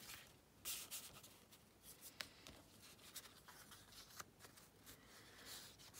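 Faint rustling and sliding of card stock and vellum being handled and positioned by hand. A short rustle comes a little under a second in, and a few light clicks follow.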